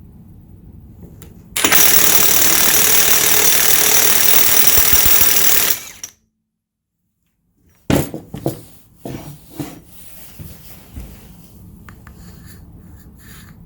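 Cordless impact wrench hammering at full speed for about four seconds, then stopping. After a pause, a sharp knock and a few light clicks and rustles of handling.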